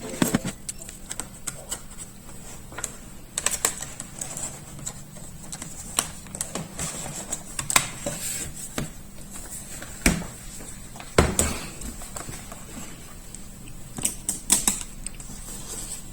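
Irregular sharp clicks and taps, hands handling the plastic and metal parts of an opened laptop, a few louder knocks among lighter ticks.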